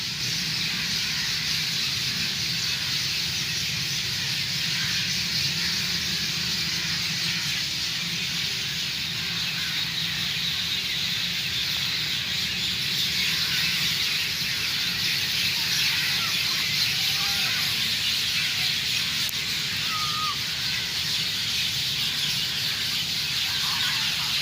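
Dense chorus of many birds chirping and calling at once, a continuous high chatter with a few single chirps standing out now and then, over a steady low hum.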